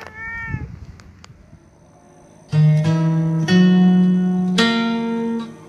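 A domestic cat meows once at the start. After a short lull, background music of plucked strings comes in about two and a half seconds in and carries on as the loudest sound.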